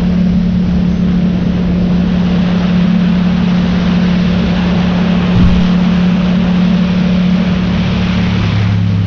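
Motorcycle engine running at a steady pitch under loud wind rush. Its pitch drops near the end.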